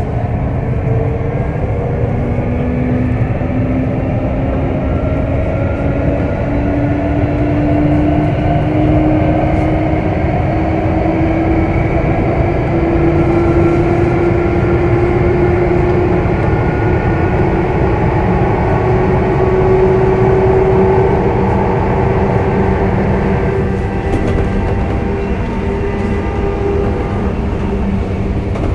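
Sotetsu 8000 series electric train running, with the steady rumble of the wheels on the rails and the whine of the traction motors. The motor tones climb slowly in pitch as the train gathers speed, level off, and change about 24 seconds in.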